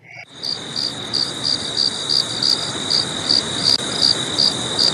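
Stock sound effect of crickets chirping, the comic cue for an awkward silence: a steady high trill with regular chirps about three a second over a background hiss.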